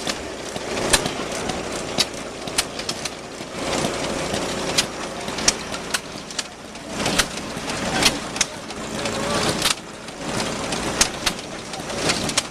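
Engines running, with sharp pops at uneven intervals over a steady background of engine noise and voices.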